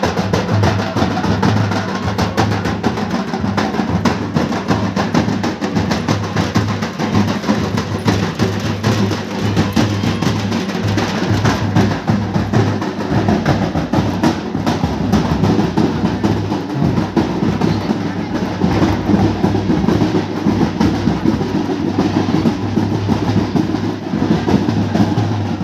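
Drums playing a steady, dense dance rhythm, with crowd voices underneath.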